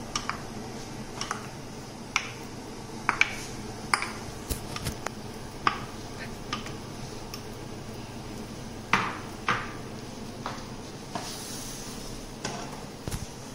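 Wooden spoon scraping mango purée out of a bowl and knocking against the bowl and pan: scattered light clicks and knocks over a steady low hum.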